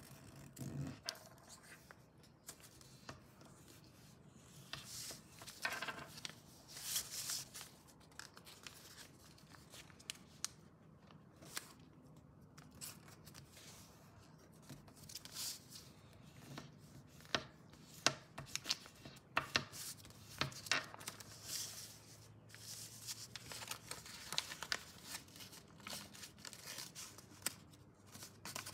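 A sheet of paper being folded by hand: irregular crinkling and rustling, with short sharp scrapes as fingers press down and run along the creases.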